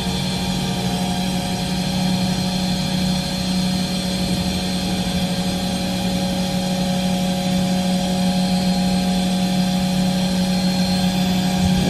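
Industrial machine running steadily: a constant hum with several fixed higher tones over it.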